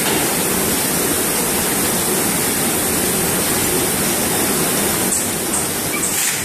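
Steady running noise of an automatic tray-packing line, with its conveyors and packing machines working. A few short clicks come near the end.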